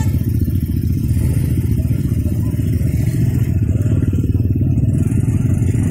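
Motorcycle engines idling, a steady low running sound.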